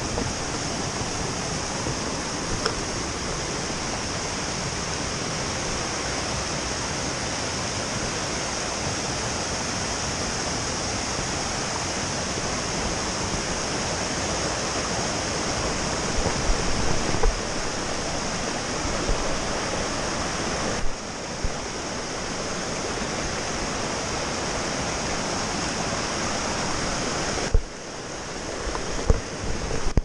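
Small waterfall cascading over rocks into a stream: a steady, dense rush of falling water that dips slightly in level twice near the end.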